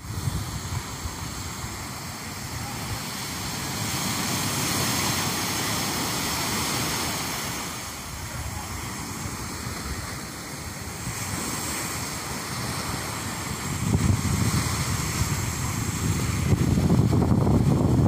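Sea surf breaking and washing over the shore, a steady rushing noise that swells and eases. Wind buffets the microphone with a low rumble near the end.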